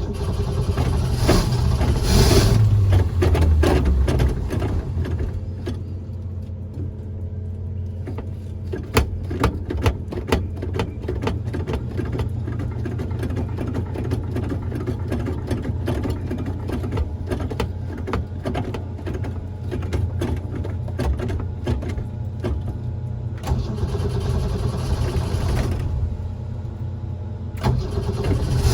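A car engine catching after a hard start and revving, then running with many sharp ticks and pops through the middle. It revs up again near the end.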